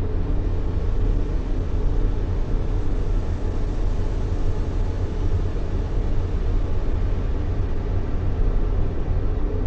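Continuous sleep noise, an even hiss weighted heavily toward a low rumble and thinning out in the treble, with no change in level or pitch.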